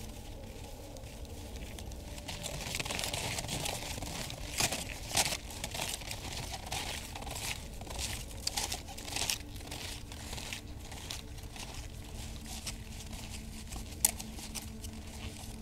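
Snowshoe steps crunching in snow: a run of irregular crisp crunches through the middle, then one sharp crunch near the end.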